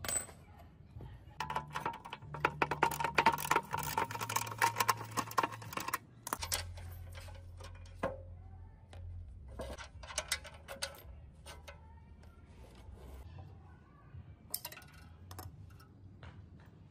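Metal clinking, rattling and scraping as the rusty steel base and vise clamp of a metal cut-off saw are taken apart by hand. A dense stretch of scraping and rattling runs from about one and a half seconds to six seconds in, followed by scattered single clinks.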